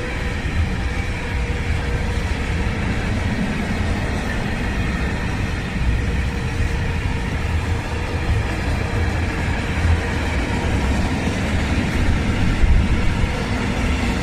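Tank wagons of a freight train rolling past, a steady rumble of steel wheels on rails with some clatter. The last wagon goes by near the end.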